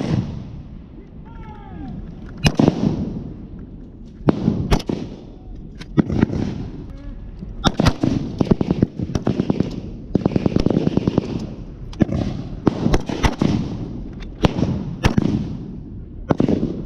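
Small arms firing blanks: single shots every second or two, crowding into rapid strings of fire through the middle.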